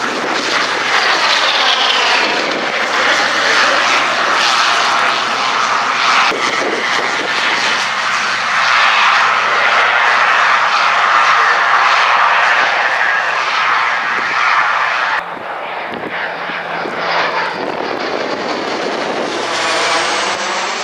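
Shorts Tucano trainer's single turboprop engine running loud on the runway, its pitch sweeping as it passes. About fifteen seconds in, the sound cuts to a quieter twin-turboprop Beechcraft King Air flying over, which grows louder near the end.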